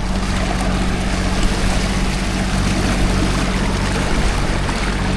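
Boat motor running steadily underway, a low even engine hum under a constant rush of water and wind noise.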